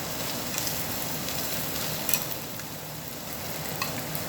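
Meat sizzling on a Korean barbecue tabletop grill, a steady hiss with a couple of sharp clicks about two and four seconds in.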